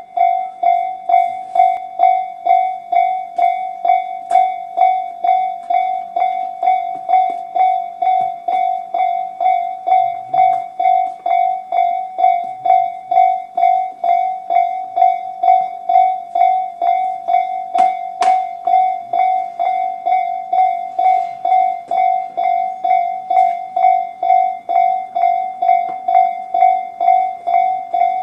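Japanese level-crossing electronic warning bells of Tobu's "type C" sound, from both sides of the crossing, ringing a steady, even ding-ding at just under two strokes a second. They are warning of an approaching train.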